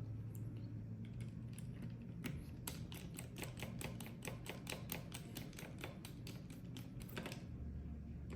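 Quick small clicks, about five a second for about five seconds, from a precision screwdriver driving a tiny T5 Torx screw into the plastic housing of a VR tracker.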